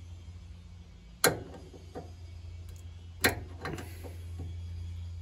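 Metal seal pick levering against a rear axle's inner oil seal in the diff housing, prying it out. It gives two sharp clicks about two seconds apart, with a few lighter ticks after the second.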